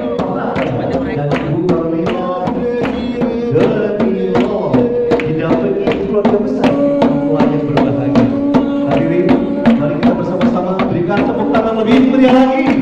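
Papuan tifa hand drums beaten in a steady, quick rhythm of about three strokes a second, with voices singing along.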